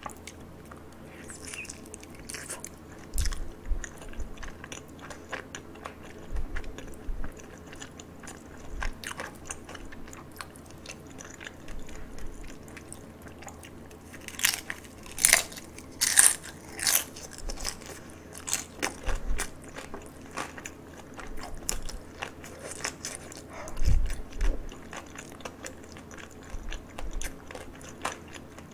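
Crispy fried dumplings being bitten and chewed: crunching and wet chewing, with the loudest crunches a little past halfway and again near the end.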